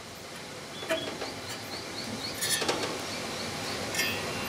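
Condenser fan of a vintage Email Westinghouse drinking fountain spinning freely on good bearings, a steady whir with a few clicks and rattles as the blade is handled.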